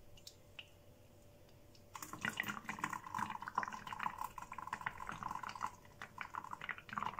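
Blended juice dripping and trickling through a stainless steel colander into a plastic jug, starting about two seconds in, with many small clicks and taps mixed through it.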